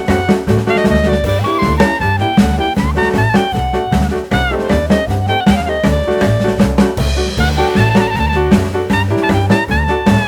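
Background music: upbeat swing-style jazz with horns and a steady drum-kit beat.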